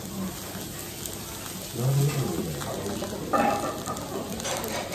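Food sizzling on a hot cast-iron griddle as a steady hiss, with a short louder burst of sound about three and a half seconds in.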